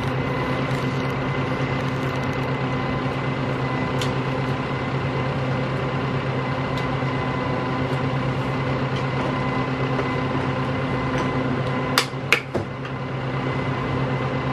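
Steady machine hum, like a fan or motor, with a low tone and several higher tones held throughout. Sharp plastic clicks sound once about four seconds in and twice in quick succession near the end as the tail light assembly is worked loose from its clips.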